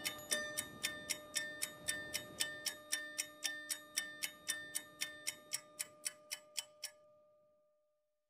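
Steady clock-like ticking, about three and a half ticks a second, over a faint held tone. The ticking fades out about seven seconds in.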